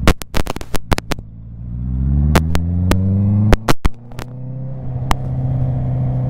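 Honda CB650R inline-four engine accelerating twice, its pitch rising through the revs, heard from the rider's seat. Where the throttle closes, in the first second and again around three and a half seconds in, there are clusters of sharp pops, the loudest sounds here.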